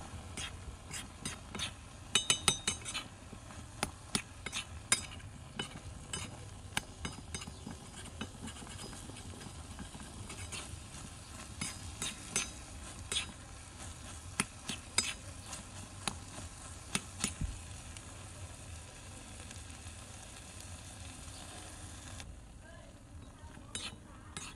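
A thin metal spatula scrapes and taps against a miniature wok, with many sharp clicks, as food stir-fries over a steady sizzle. The sizzle dies down near the end.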